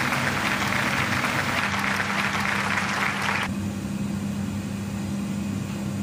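Steady mechanical hum of a kitchen appliance, with an even hiss over it that cuts off suddenly about three and a half seconds in.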